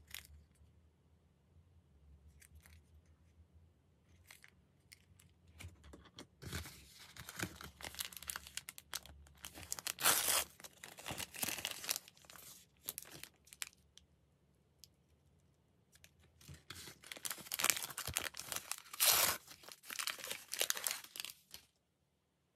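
Crinkly plastic wrapper of a miniature toy blind packet being torn open and crumpled by hand, in two spells of rustling and tearing with a short pause between, after a few faint clicks of small plastic pieces being handled.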